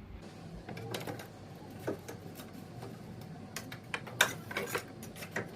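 Light, irregular clicks and taps of the cooling plate and grille being handled and fitted into place on the car's front bumper, with a quick cluster of taps about four seconds in.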